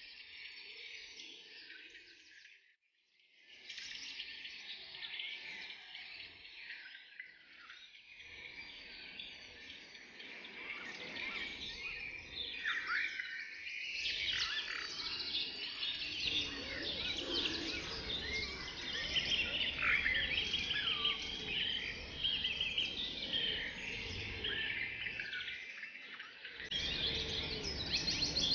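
A forest chorus of many songbirds chirping and singing at once, with overlapping quick notes and short whistled glides. It cuts out briefly about three seconds in, then grows louder and busier about halfway through.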